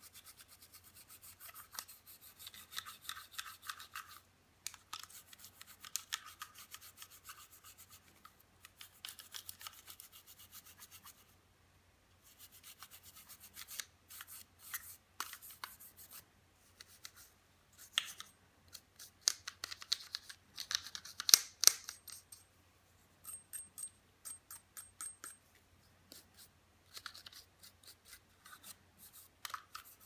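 A small brush scrubbing grime off Beretta 92FS pistol parts in quick back-and-forth strokes. The strokes come in bursts of a few seconds with short pauses between, and a couple of sharper clicks about two-thirds of the way through are the loudest sounds.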